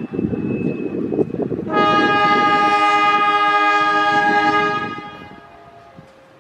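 Diesel locomotive's horn sounding one long, steady blast of about three seconds, a chord of several tones, starting a couple of seconds in and fading away, over the low rumble of the approaching train.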